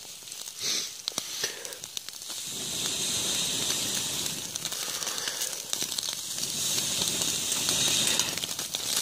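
A person blowing on the glowing embers of a wood fire to liven it: a short puff about a second in, then a long steady breathy hiss from about two and a half seconds in, lasting about six seconds. Light crackles of the fire come through.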